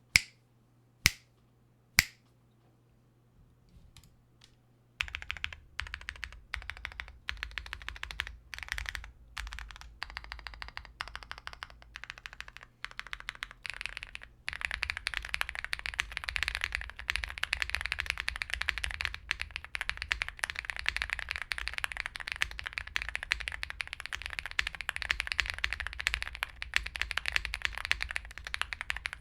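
Mechanical keyboard being typed on: a Mr. Suit tenkeyless keyboard with Zaku linear switches and PE foam. Three sharp clicks come first, then short separate runs of keystrokes from about five seconds in, and steady fast typing from about halfway on.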